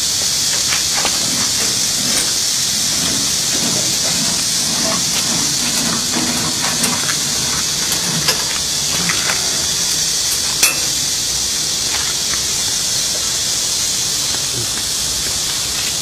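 Steady high-pitched hiss with a few faint clicks in the second half.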